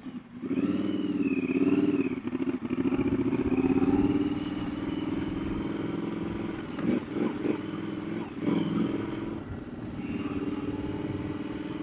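Triumph Scrambler 1200's parallel-twin engine pulling away, its pitch rising over the first second or two, then running steadily as the bike rides a rough gravel lane. A few short clattering knocks come partway through.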